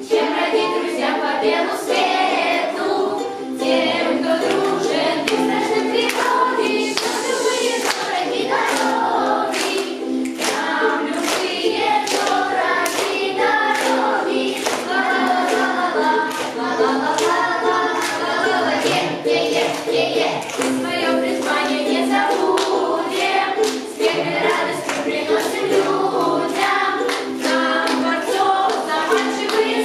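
A group of voices singing a song together to ukulele accompaniment, with hand claps keeping a regular beat.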